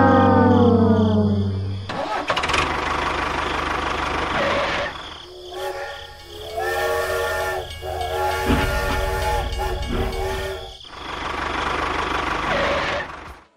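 Toy steam train sound effects: a falling horn-like tone at the start, then a steam-like hiss, then a chord-like steam whistle blown in several blasts through the middle, and more hissing near the end.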